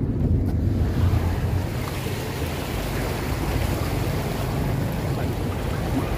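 Steady rushing, splashing noise of floodwater, with wind buffeting the microphone.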